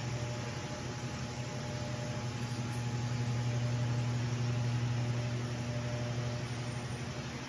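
Steady low mechanical hum with a few faint higher tones over a soft hiss, swelling slightly in the middle. It is an unusual noise that the uploader puts down to construction work or something like it.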